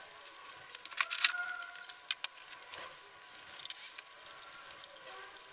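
Hands working electrical wires in a plastic junction box: a few sharp clicks about a second in and around two seconds, then a short scraping rustle just before four seconds.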